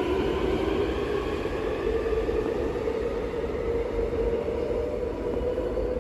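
Busan Metro Line 3 train running on the rails: a motor whine that climbs a little in pitch and then holds steady, over the rumble of the wheels, easing off slightly near the end.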